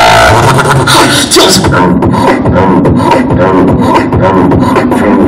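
Vocal beatboxing amplified through a PA loudspeaker: dense percussive mouth clicks and hums. A short bit of music at the very start stops within the first half second.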